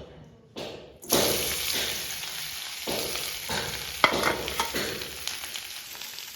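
Food sizzling in hot oil in a cooking pan, starting suddenly about a second in, with the pan's contents being stirred in repeated strokes.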